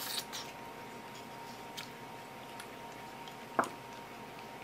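Light clicks of chopsticks and a ceramic rice bowl being handled, with one sharper clink and short ring about three and a half seconds in. A faint steady high hum runs underneath.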